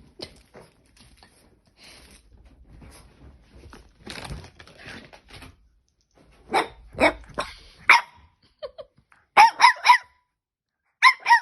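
French Bulldog puppy giving short, sharp, high-pitched play barks in quick runs of two to four during a fit of zoomies. The barks follow several seconds of faint rustling and scuffling.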